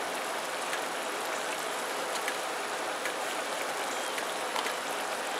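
Pot of corn and stock cooking on a single-burner camp stove: a steady hiss with faint, scattered pops.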